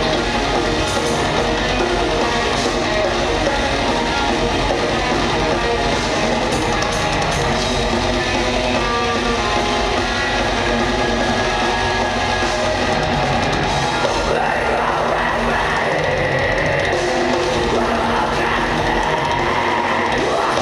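Rock band playing live, with electric guitars, drum kit and keyboards, loud and steady, heard from the audience in the hall. The sound of the band shifts about two-thirds of the way through.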